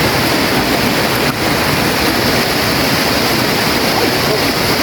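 River water rushing steadily: a loud, even hiss with no breaks.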